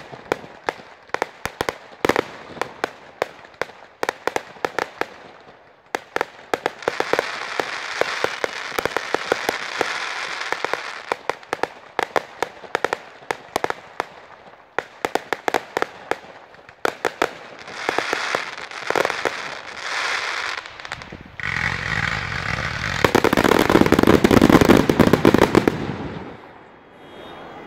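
Fireworks bursting overhead: a long run of sharp pops and crackles, with hissing, crackling stretches between them. A loud rushing noise swells for several seconds near the end.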